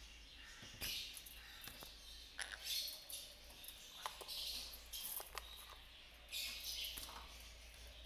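Pet conures in a cage making short, high chirps and squeaks, several in a row at irregular intervals, with a few sharp clicks in between.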